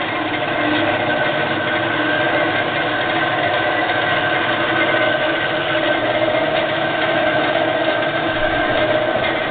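MSC 7" x 12" horizontal band saw running: its 3/4 hp motor and four-speed belt drive turning the blade, a steady hum with several steady whining tones.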